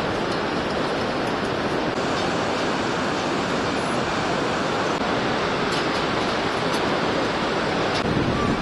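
Steady rushing of white-water river rapids in the Bhote Koshi gorge far below.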